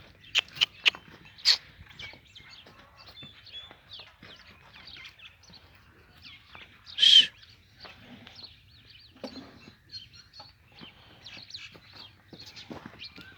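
Birds chirping in the background of a farmyard, with a few sharp knocks in the first second and a half and one loud, short, sharp noise about seven seconds in.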